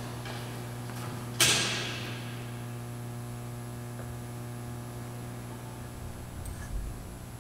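Steady electrical mains hum, with one sharp knock about a second and a half in that rings on briefly in the church's echo, and a softer bump near the end.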